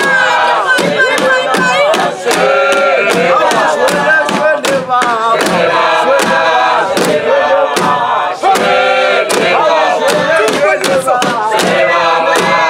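Shangaan dance troupe chanting and singing together in loud group voices, over a steady beat of sharp strikes about two to three a second.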